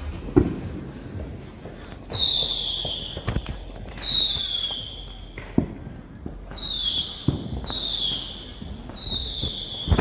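Fireworks going off around a neighbourhood: scattered sharp firecracker bangs, the loudest about half a second in, with a run of five high whistles, each about a second long and falling slightly in pitch, from about two seconds on.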